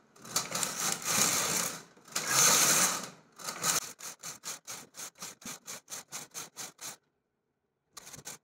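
Hand-pushed carriage of a flatbed punch-card knitting machine swept across the metal needle bed three times, each pass a rattling slide of about a second, knitting a two-colour pattern row by row. Then a quick run of short clicks, about four a second, stops about seven seconds in, with a few more clicks near the end.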